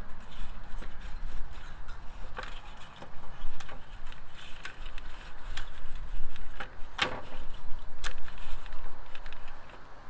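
Scattered clicks and knocks of the pool cleaner's plastic body and new skirt being handled and fitted together, the sharpest about seven seconds in, over a low steady rumble.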